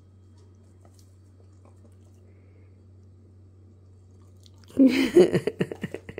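A dog chewing a piece of food it has just taken from a hand: a quick run of wet, smacking clicks starting about two-thirds of the way in. A short, loud voice-like sound comes just as the chewing begins. Before that there is only a faint steady hum.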